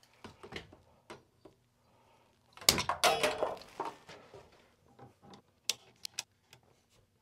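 Scattered clicks, knocks and clinks of hand tools and PEX fittings being handled overhead, with a louder clatter about three seconds in.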